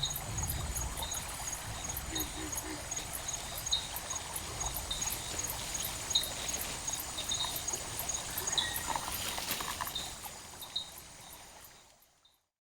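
Running, trickling water, with faint short high chirps about once a second, fading out near the end.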